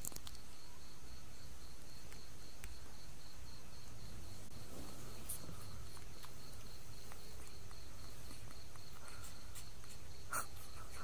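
A cricket chirping in a fast, even pulse over a steady low hum, with scattered faint clicks and one sharper click near the end.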